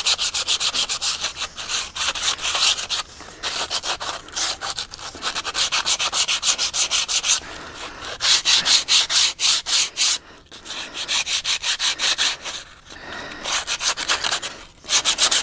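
Hand sanding block rubbed back and forth along the cut edge of a plywood template, in quick rasping strokes. The strokes come in several runs broken by short pauses.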